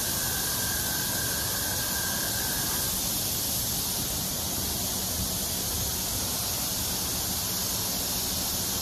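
PDQ LaserWash M5 touchless car wash spraying pre-soak over a vehicle: a steady hiss of pressurized spray and mist. A faint high whine sounds for the first three seconds.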